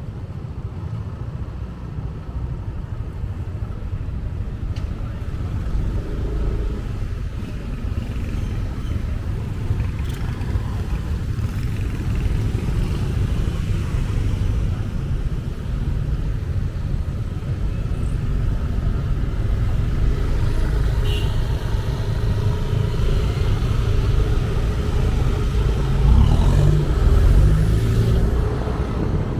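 Motorcycle riding through city traffic: a steady low road and engine rumble with passing cars, louder for a couple of seconds near the end.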